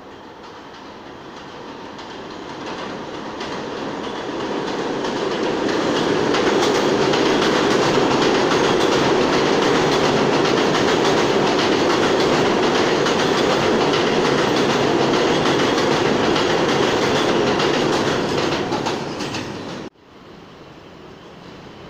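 New York City subway train running through the station at speed without stopping, with a heavy rumble and wheel clatter. It builds over the first few seconds as the train approaches, stays loud while the cars pass, then fades and breaks off abruptly near the end.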